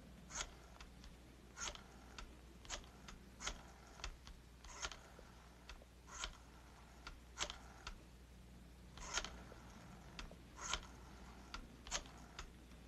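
Black rotary desk telephone being dialed: faint mechanical clicks, about a dozen spaced roughly a second apart, each followed by a few lighter ticks as the dial is turned and released digit after digit.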